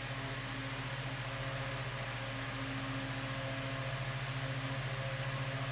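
Hoover model 6700-08 8-inch desk fan running at its only speed: a steady motor hum under the even rush of moving air.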